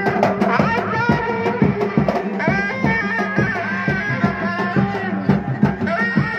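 Sundanese reak ensemble music: a tarompet plays a wavering, sliding melody over fast, dense drumming.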